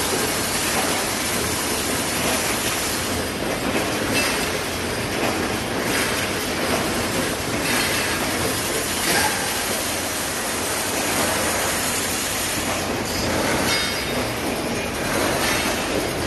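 Automatic wire mesh welding machine running: a steady metallic clatter and rattle, with a brief louder hiss every few seconds.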